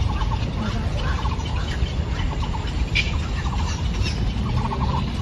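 Birds calling, a short rapid pulsed call repeated about once a second, over a steady low rumble.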